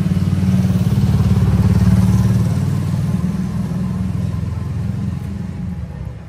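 A motorcycle engine running close by on the street, a low pulsing rumble that is loudest about two seconds in and then fades away.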